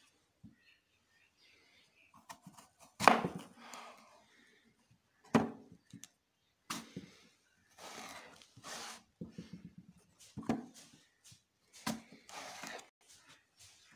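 Chef's knife slicing through a crisp apple and knocking down onto a plastic cutting board: several sharp chops, with crunching of the apple flesh between them.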